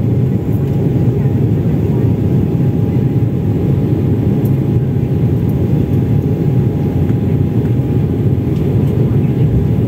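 Steady cabin noise of a jet airliner during its climb after takeoff: an even low rush of engine and airflow with a faint steady hum above it.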